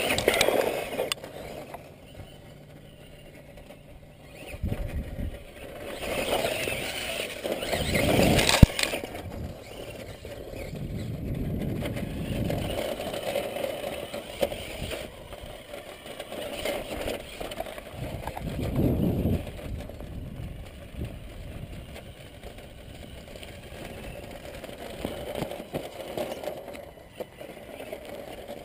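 Tamiya Subaru Brat electric RC truck driving over loose, rough dirt: a steady whir of its motor and gearbox with tyres and chassis rattling over the ground, swelling in several rougher stretches. A single sharp knock about eight and a half seconds in.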